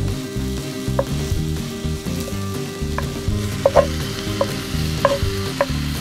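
Minced beef frying with onions and garlic in a cast-iron Dutch oven over a wood fire, sizzling as a wooden spatula stirs and breaks it up. The spatula scrapes and knocks against the pot several times, most often in the second half.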